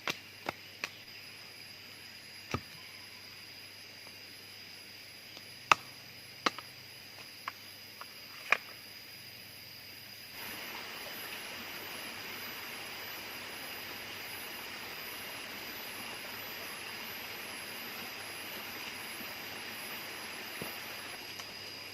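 Chopping: a blade strikes wood in about nine sharp, irregularly spaced knocks over the first nine seconds. About ten seconds in, the sound switches abruptly to a steady rushing noise like running water, with a thin high tone running through it.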